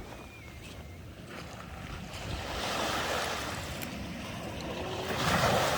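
Ocean surf breaking and washing in, swelling twice, with the second wave louder near the end.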